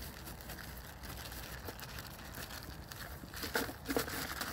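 Rustling and crackling of a piece of litter being handled and tugged loose, with a couple of sharper crackles about three and a half and four seconds in.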